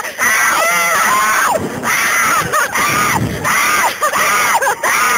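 A woman screaming in terror on a slingshot ride, a string of long, high screams one after another with short breaths between.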